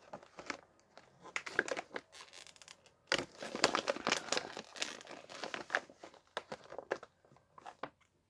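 Plastic sweet packet crinkling as it is handled, a run of crackly rustles that is busiest in the middle.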